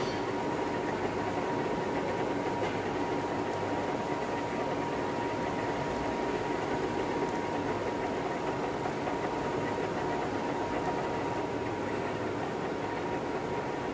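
Metal lathe running steadily with a thin constant whine while an M20×2.5 tap, used as a threading tool, cuts a thread into the turning metal bar.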